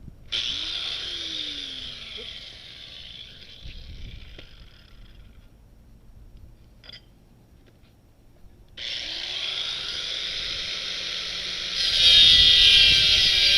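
A power tool cutting through a steel bicycle frame tube, in two runs: one from just after the start to about halfway, then a pause, then a second run that starts again and grows louder near the end.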